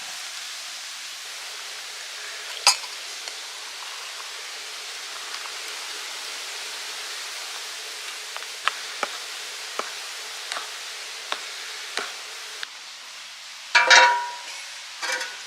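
Food sizzling in a pan over a wood fire, a steady hiss, with scattered sharp ticks. Near the end comes a louder clatter with a short ringing metal clink.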